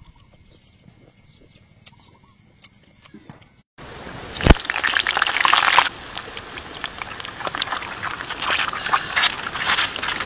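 A few faint clicks, then from about four seconds in a duck egg frying in hot oil inside a green bell pepper ring: loud sizzling and crackling, loudest as the egg goes into the oil and then carrying on steadily with sharp pops.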